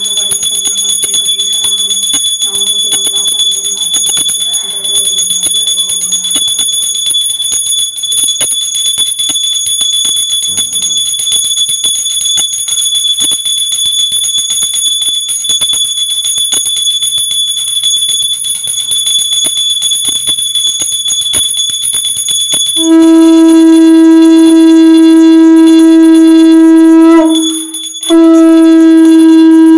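A small puja hand bell rung rapidly and continuously during aarti, then about three-quarters of the way in a conch shell (shankha) blown in a long, loud, steady note that breaks off for a moment and is blown again.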